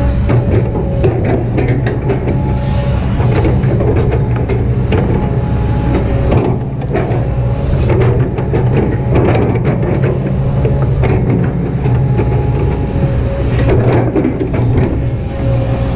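Kobelco SK200-8 hydraulic excavator's diesel engine running steadily under working load, with repeated clanks and knocks from the arm and bucket as it shapes a slope.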